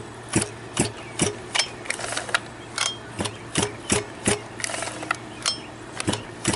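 Regular sharp mechanical clicks, about two or three a second, with short rattles between some of them, from handling the Losi 5ive B's 34cc gas engine while readying it to start.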